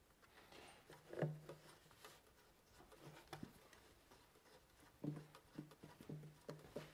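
Faint clicks and knocks of hands fitting a line onto a turbocharger. About five seconds in, a run of short, low clicks starts at about three to four a second.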